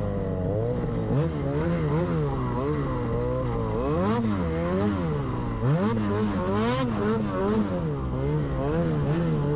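Snowmobile engine being ridden through deep powder, its revs rising and falling over and over as the throttle is worked.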